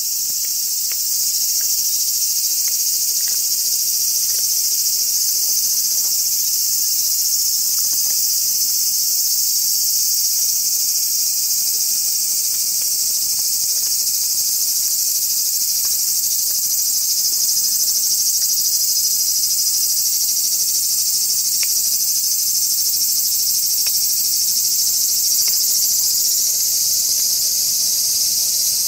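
Loud, steady, high-pitched drone of a summer insect chorus, with a few faint clicks underneath.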